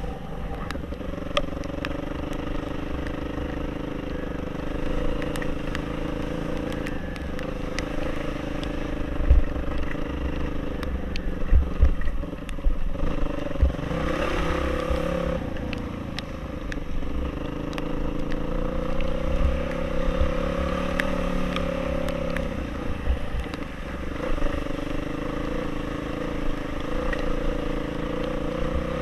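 Off-road motorcycle engine running while being ridden, its pitch rising and falling with the throttle, over a heavy low rumble with occasional thumps.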